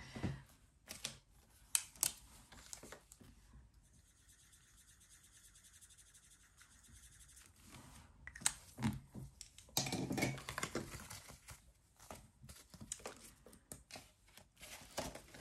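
Paper and plastic binder sleeves rustling and clicking as a cash binder is handled, its pages flipped and notes picked up. There are a few seconds of steady faint scratching near the middle, and the handling noise picks up again in the second half.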